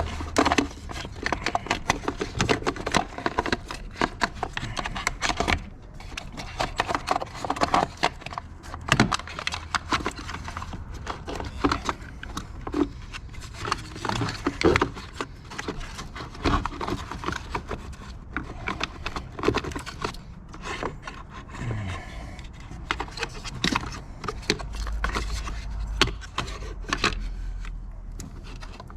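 Parts and wiring being handled and shifted under a vehicle's hood: irregular clicks, knocks, rubbing and scraping, with a low hum for a few seconds near the end.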